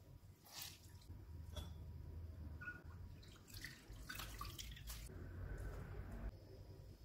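Faint dripping and splashing as handfuls of grated potato are squeezed out by hand, the water falling back into a glass bowl in a dozen or so scattered drips.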